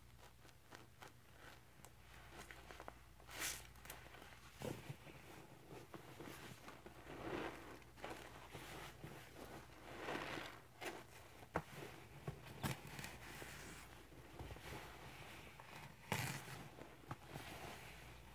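Scrub Daddy sponges squeezed and worked in rubber-gloved hands in a bucket of thick cleanser suds: quiet wet squishing of sponge and foam in irregular squeezes, with a few sharp clicks.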